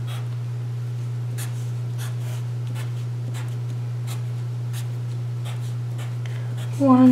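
Felt-tip marker on paper: short, quick strokes about once or twice a second as tick marks are drawn around a circle, over a steady low hum.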